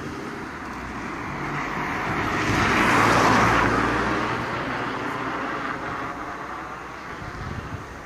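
A car driving past on the street: the tyre and engine noise swells to its loudest about three seconds in, then fades away.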